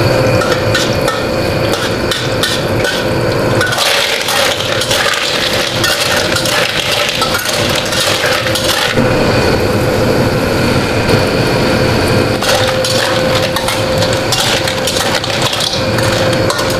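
Metal spatula scraping and knocking against a steel wok while clams and garlic are stir-fried in hot oil, the shells clattering as they are tossed, over a continuous frying noise that grows louder for a few seconds in the middle. A steady hum runs underneath.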